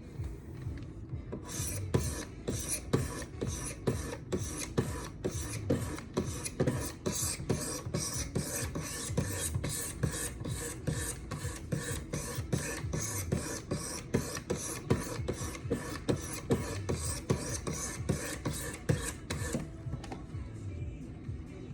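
400-grit stones of a Wicked Edge guided sharpening system stroked along a folding knife's blade edge in an even, rapid rhythm of scraping strokes, a few a second. The strokes start about a second and a half in and stop about two seconds before the end.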